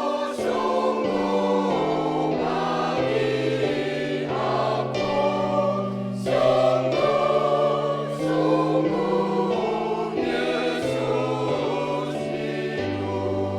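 Church choir singing in harmony, the parts moving together from one held chord to the next.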